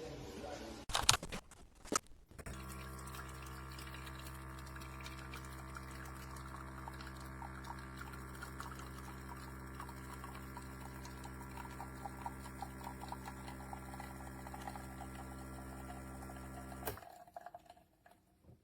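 A few knocks, then a De'Longhi La Specialista Arte Evo espresso machine's vibratory pump runs with a steady buzzing hum while liquid pours and drips, for about fourteen seconds, and cuts off suddenly near the end.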